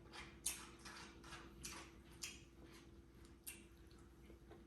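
Faint eating sounds: a few scattered wet clicks and smacks of chewing and food handling, over a steady faint hum.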